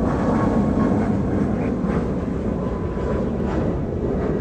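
Boeing 737-8 MAX's CFM LEAP-1B turbofans at climb thrust, a steady low rumble from the jet climbing away after takeoff.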